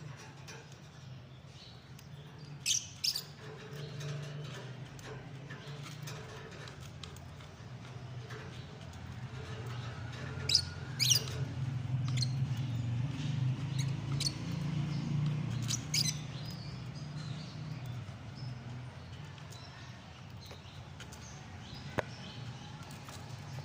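Lovebirds giving short, sharp, high-pitched chirps in a few brief clusters, over a low steady hum.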